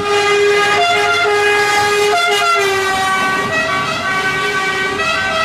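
An ambulance siren sounding: a steady held tone with higher notes that step up and down in pitch a few times.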